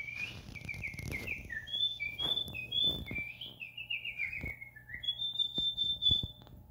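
High bird-like chirping: a quick run of short chirps, many falling in pitch, then one long steady whistle about five seconds in, with a few soft knocks.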